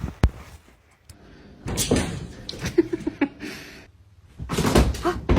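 A sharp knock, then two louder bursts of banging and clattering.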